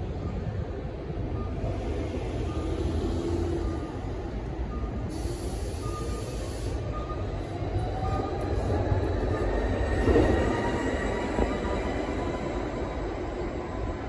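Proterra Catalyst BE40 battery-electric bus pulling past at close range: a steady low rumble of tyres and drivetrain, with the electric drive's whine rising as the bus speeds up, loudest about ten seconds in as it passes. A faint short beep repeats about every 0.7 s through the first half.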